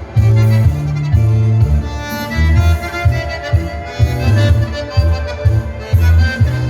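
Dance-hall music: a melody over a strong bass line that pulses in regular beats.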